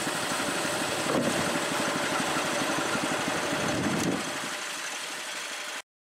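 Small gasoline engine running steadily, with a dense mechanical hum, then cutting off abruptly near the end.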